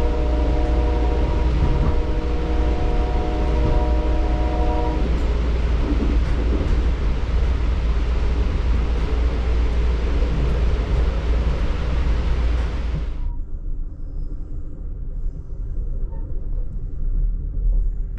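Amtrak passenger train's locomotive horn sounding a held chord over the loud rush of the moving train; the horn stops about five seconds in. The rushing noise cuts off suddenly about thirteen seconds in, leaving a low rumble.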